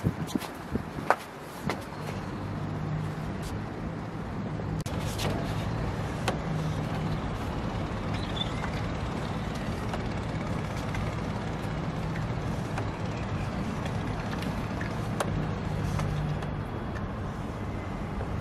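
Steady low mechanical hum, like an engine or motor running, with a few sharp clicks in the first couple of seconds.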